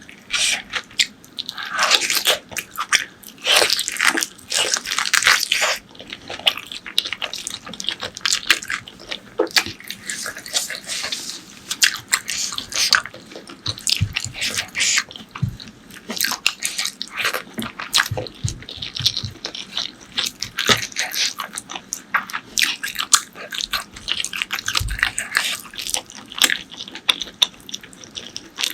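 Close-miked eating of spicy pork leg curry with rice: wet chewing, smacking and biting, a dense run of sharp mouth clicks in quick succession.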